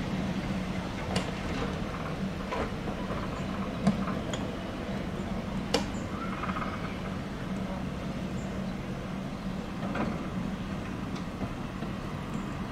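Diesel shunting locomotive running with a steady low hum while slowly moving a rake of coaches. Scattered sharp clicks and knocks come from the rolling stock, the loudest about four and six seconds in.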